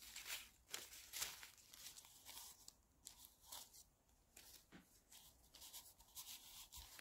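Faint rustling and soft taps of paper sheets being handled and shifted on a table, in near silence.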